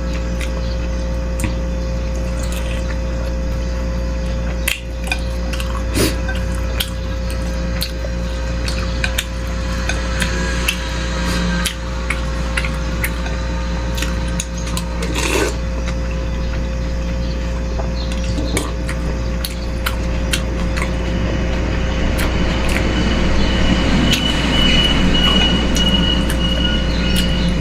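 Eating sounds from a bowl of beef-rib meatball soup: a spoon clinking against the bowl with chewing and broth-slurping, over a steady low hum.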